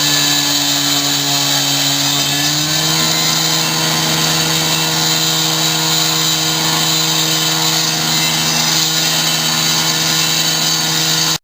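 Heavy machinery running loud and steady, with a droning motor note that rises a little about two and a half seconds in.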